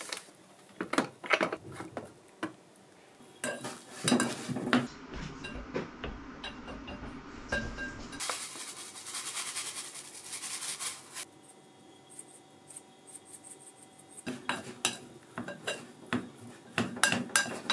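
Clinks, knocks and scrapes of kitchen utensils against pots and dishes, including a plastic rice paddle scraping and tapping a rice cooker's metal inner pot near the end. In the middle, a steady hiss lasts about three seconds.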